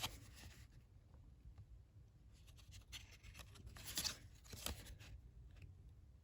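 Faint rustling of paper and card being handled, with a few soft scrapes about the middle.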